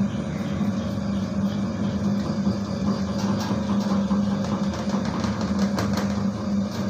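Homemade stainless-steel dough mixer running: its electric motor hums steadily while the bowl churns a batch of flour into donut dough, with frequent light clicks and rattles from the mixing.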